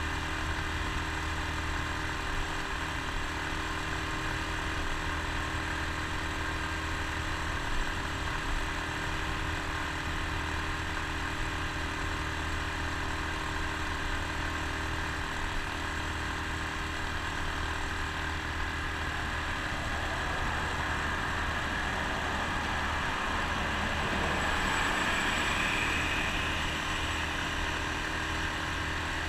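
Honda Super Cub C125's single-cylinder four-stroke engine running steadily at cruising speed, mixed with wind and road noise. A louder rush of noise swells for a few seconds about 25 seconds in.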